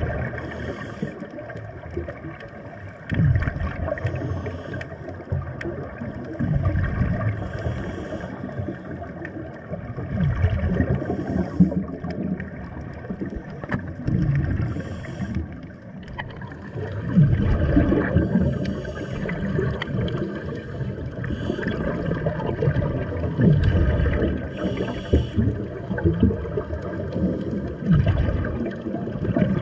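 Underwater sound of scuba divers breathing through their regulators: gurgling bursts of exhaled bubbles every few seconds over a continuous low water rumble.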